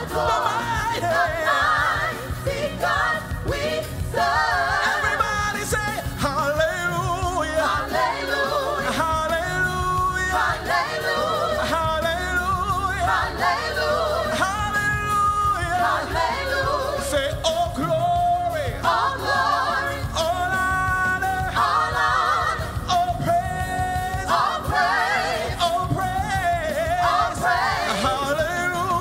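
Live gospel song: a male lead singer belting out phrases with a group of backing vocalists singing along, over steady instrumental accompaniment.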